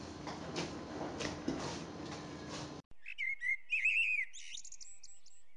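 Hands kneading and pressing soft bread dough in a bowl: soft rubbing and squashing with small knocks, which cuts off abruptly about three seconds in. After that comes a short run of bird chirps, quick high notes rising and falling.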